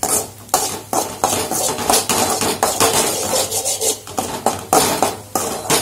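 Slotted metal spatula scraping and clinking against a metal kadai in quick, irregular strokes, stirring and breaking up eggs as they scramble.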